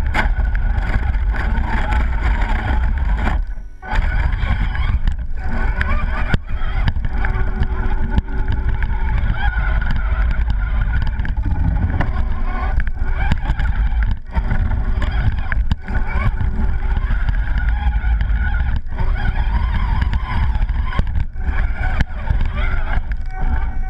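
Radio-controlled truck running, heard from a camera mounted on it: a steady low rumble with its motor and gears whining and wavering in pitch, cut by several brief drops in level.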